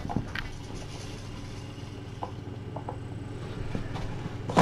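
Steady low hum of room noise with a few faint, soft ticks about two to three seconds in.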